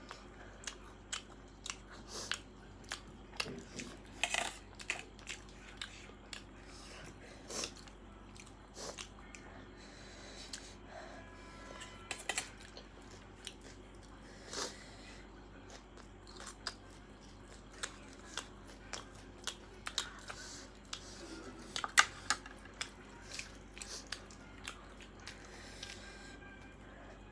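A person chewing and biting crunchy food, an irregular string of sharp crunches and clicks, with one especially loud crunch near the end.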